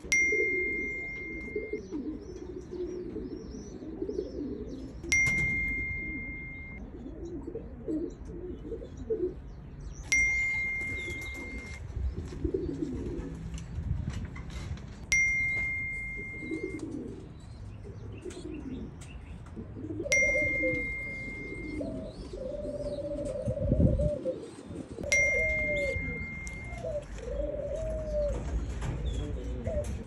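Pigeons cooing in low, wavering calls throughout. A bell-like ding sounds every five seconds, six times, each holding one steady high tone for about a second and a half.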